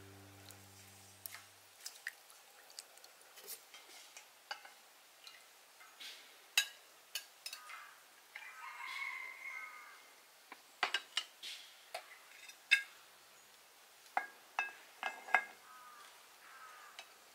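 Faint, scattered clinks and taps of a utensil against a steel pot and a plate, with water dripping as boiled beef is lifted out of the pot. A few louder knocks come about six to seven seconds in and again around eleven to thirteen seconds.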